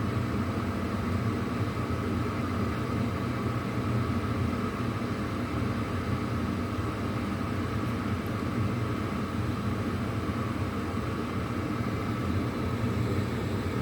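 Carrier Weathermaker gas furnace's draft inducer motor running steadily: a low hum with a fainter higher whine, nice and quiet. It is the pre-purge stage of the start-up, before the hot surface igniter glows and the burners light.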